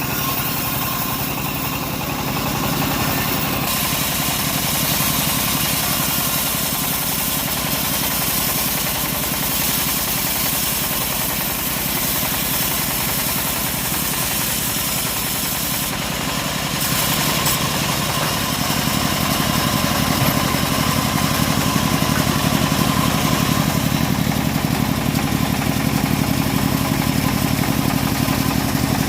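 Engine of a homemade mobile circular-saw rig running steadily, growing louder about two-thirds of the way through.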